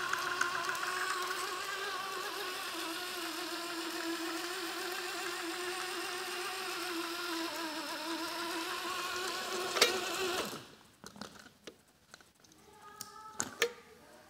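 Vintage Royal Crusher RC monster truck's electric motor and gearbox running steadily with the wheels spinning free off the ground, a high wavering whine. A sharp click comes near the end of the run, the motor stops about ten and a half seconds in, and a few light clicks and knocks follow.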